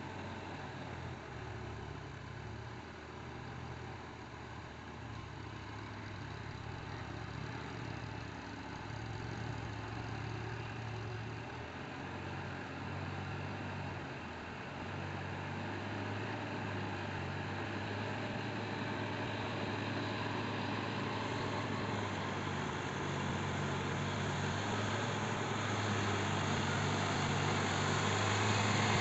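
Sonalika DI 740 III tractor's diesel engine running steadily under load as it pulls a rotavator through a flooded paddy field for puddling. It grows steadily louder as the tractor comes closer.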